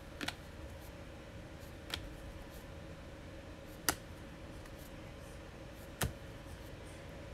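A stack of glossy basketball trading cards being flipped through one at a time, each card moved off the stack with a light click, four clicks about two seconds apart, over a faint steady hum.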